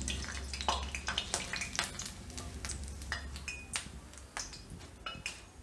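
Hot oil sizzling and crackling around gram-flour fritters deep-frying in a kadai, with the light clicks of a wire mesh skimmer working through the pan to scoop them out. The sizzle fades toward the end as the fritters are lifted clear of the oil.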